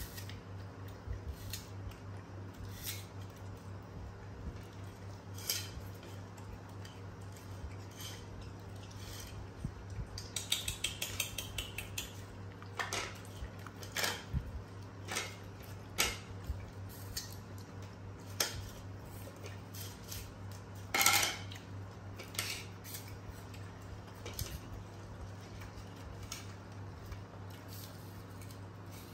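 Young macaques handling and eating apple slices off ceramic plates: scattered light clicks, clinks and crunches, with one louder clatter about three-quarters of the way through. A steady low hum runs underneath.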